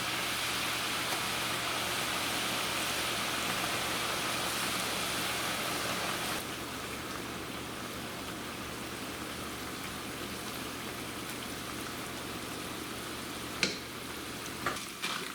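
Corn tortilla pieces frying in hot oil: a steady, even sizzle that gets a little quieter about six seconds in. A single sharp click comes near the end.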